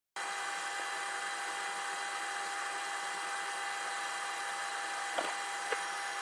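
Vacuum carbon coater's pumps running: a steady whirring hiss with a thin high hum, and two light clicks half a second apart about five seconds in.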